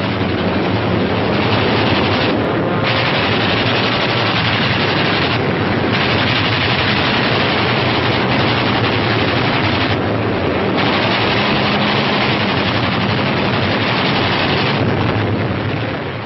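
Rapid machine-gun fire from a bomber's defensive guns, in long bursts broken by a few short pauses, over a steady low engine drone, in dull old-film sound. It fades out near the end.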